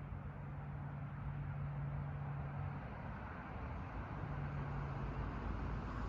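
A steady low hum, like a small motor, over a low rumble; the hum drops out for a moment about three seconds in, then returns.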